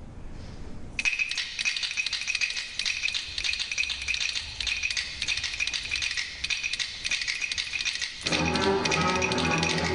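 Live ensemble music: about a second in, a fast, dense percussion rattle starts and keeps going, and a little after eight seconds pitched instruments come in with a full sustained chord under it.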